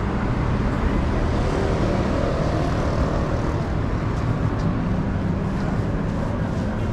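Steady low rumble with a faint hum, the continuous background noise of a busy covered market aisle.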